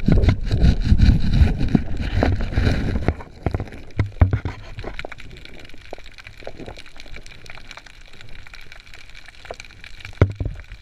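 Underwater water movement and scraping as a rock lobster is shaken loose from its hole: a heavy low rumble for the first three seconds, then much quieter, with scattered clicks and crackles.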